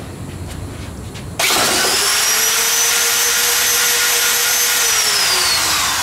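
Corded electric drill starting up about a second and a half in and running at full speed with a steady high whine over a rushing hiss, spinning a wad of burning steel wool. Near the end the whine drops in pitch as the drill slows.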